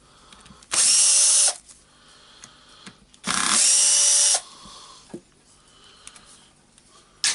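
A powered screwdriver or drill backing out housing screws in two short runs, its motor whining up to speed each time, about a second apart. Light clicks of handling come between the runs.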